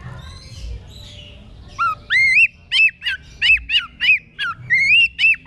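Oriental magpie-robin singing loudly. Faint chirps give way, about two seconds in, to a run of about ten clear whistled notes, each rising then falling, repeated two or three times a second.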